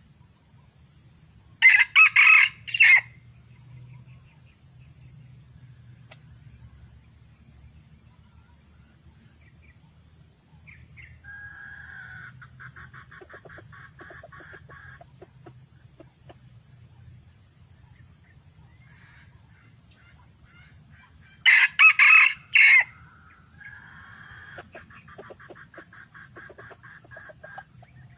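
Red junglefowl rooster crowing twice, about twenty seconds apart. Each crow is short and loud, lasts about a second, and is broken into several parts. Between and after the crows come fainter, rapidly pulsed clucking calls.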